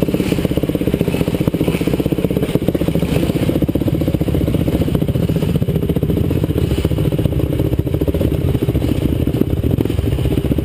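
Dirt bike engine running steadily, heard close from a camera mounted on the bike as it rides up a rough trail.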